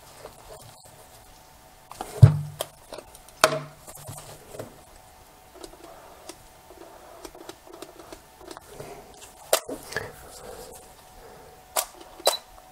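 Clicks and knocks from handling a Canon 7D DSLR fitted with a Sigma 10-20mm lens, a few sharp ones scattered through, the loudest a thump about two seconds in.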